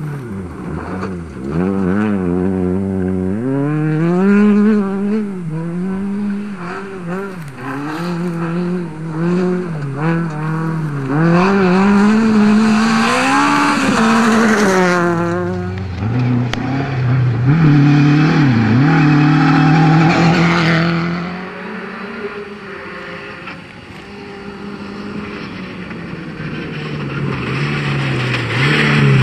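Rally cars on a gravel stage, engines revving hard and dropping back again and again through gear changes as each car passes. There is a quieter stretch about three-quarters of the way through, then another car comes up loud near the end.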